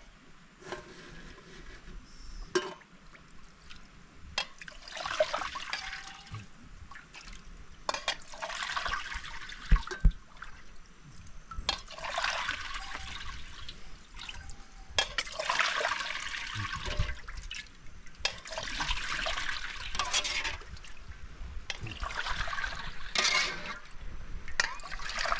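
Liquid being poured and splashing, in about six pours of a second or two each, a few seconds apart.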